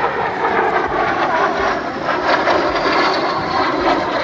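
Airplane engine running loud and steady as the plane makes a pass, with a high whine that slowly falls in pitch through the second half.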